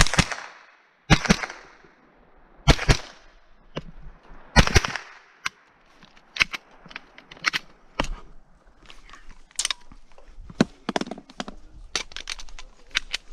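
Scoped Ruger 10/22 .22 rimfire rifle firing a string of shots at an uneven pace. The loudest shots come in the first five seconds, followed by a run of lighter, quicker cracks.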